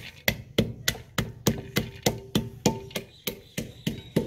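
Wooden pestle pounding almonds, cashews and pistachios in a clay mortar, coarsely crushing them. It strikes in an even rhythm of about three knocks a second.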